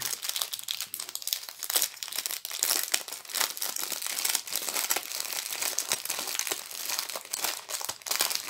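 Small plastic zip-lock bags of square diamond painting drills crinkling and rustling as they are handled, a dense crackle of many small clicks.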